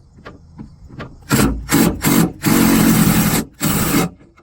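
A tool turning the liftgate wiper motor bolts loose, in five loud noisy bursts beginning about a second in; the fourth burst runs for about a second.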